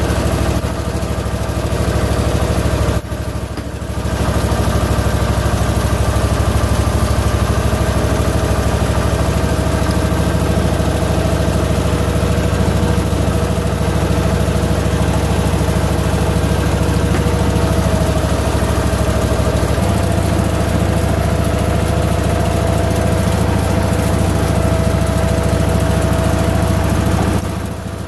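Allis-Chalmers 712H garden tractor engine running steadily just after start-up, turning the hydrostatic transmission over to get fresh oil moving and bleed the hydraulic system. The engine note dips briefly about three seconds in and again near the end.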